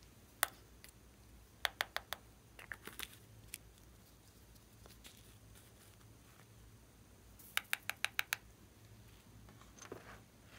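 Hands kneading and pressing a large lump of glossy slime, making sharp clicking pops: a quick cluster of four about two seconds in, a few scattered ones after, and a fast run of five later on, with a softer sticky sound near the end as the slime is pulled up and stretched.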